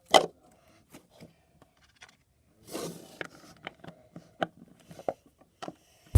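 Glittery slime being squished and handled by hand, giving irregular sticky clicks and short crackling pops, with a louder pop right at the start and a longer crackly squish about three seconds in.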